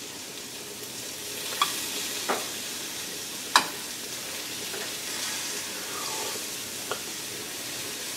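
Metal spoon stirring mushroom gravy in a stainless steel saucepan, knocking against the pot four times over a steady hiss.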